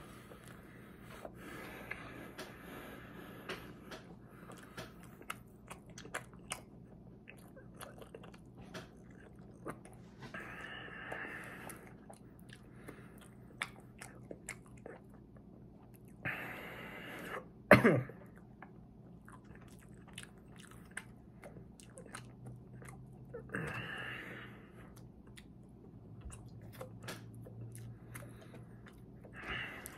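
Close-up mouth sounds of a chocolate éclair being chewed: a steady run of small wet clicks and smacks, broken by several breaths about a second long. About eighteen seconds in, a brief loud vocal sound dropping in pitch stands out above the chewing.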